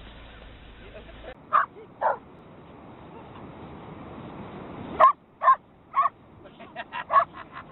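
A dog barking in short, sharp yips: a couple of separate barks, then three about half a second apart, then a quick run of smaller yips near the end.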